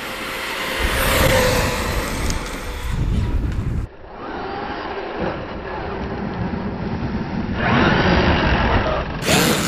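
Traxxas X-Maxx electric RC monster truck driving fast on a gravel road: tyres crunching and throwing gravel, with its motor running. The sound changes abruptly about four seconds in and again near the end.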